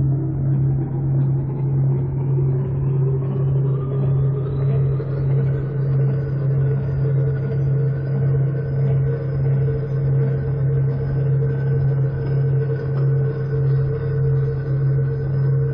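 Ambient electronic drone music: a deep steady hum that swells and fades about once a second, with higher tones sliding slowly upward over the first five or six seconds and then holding.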